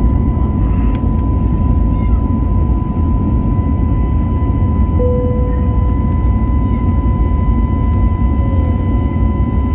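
An airliner's jet engines at takeoff thrust, heard from inside the passenger cabin as the plane lifts off and climbs. A steady deep rumble runs under a constant high whine.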